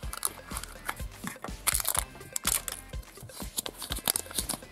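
Hands opening a plastic Kinder Surprise capsule and handling the crinkly plastic wrapper and folded paper leaflet inside: a run of irregular clicks and rustling. Soft background music plays underneath.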